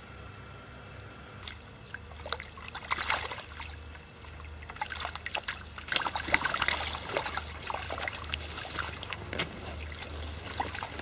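Irregular splashing and sloshing of water mixed with small crackles, in a cluster about three seconds in and a longer, busier stretch from about five to nine seconds.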